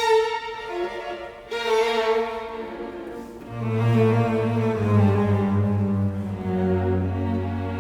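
Background music of slow bowed strings, held notes with a low cello line coming in about halfway through.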